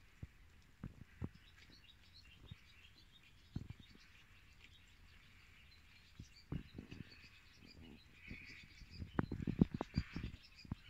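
Small birds chirping in the background, with scattered soft clicks and knocks that bunch together and are loudest about nine to ten seconds in.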